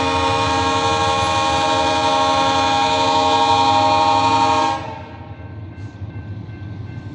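Railway locomotive air horn sounding one long blast of several notes at once, the warning for the level crossing, which cuts off suddenly near two-thirds of the way through; a lower rumble of the approaching train goes on after it.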